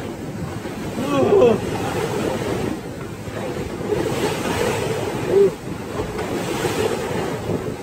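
Wind buffeting the microphone over the steady wash of the sea around a fishing boat, with a short voiced exclamation about a second in.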